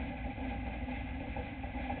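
Dirt-track race truck's engine idling steadily, heard from inside the cab.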